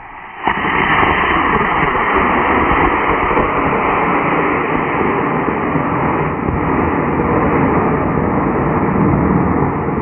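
Mid-power model rocket motor igniting on the pad about half a second in, followed by a loud, steady rushing noise.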